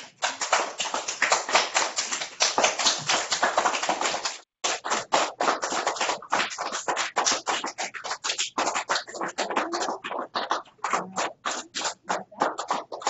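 A small group of children clapping, dense and steady for the first few seconds, then breaking briefly and going on as looser, more scattered claps toward the end.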